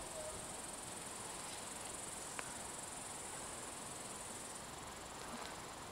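Crickets chirring steadily in a high, continuous band, with one faint click about two and a half seconds in.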